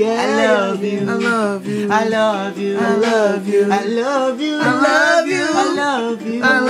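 Male voices singing a wordless melody that slides up and down over a steady held low note.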